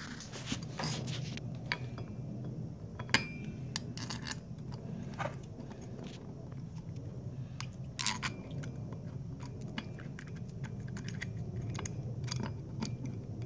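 Scattered light metallic clicks and clinks as the cast stainless steel cap of a manual locking hub is turned and seated onto the hub body, over a steady low hum.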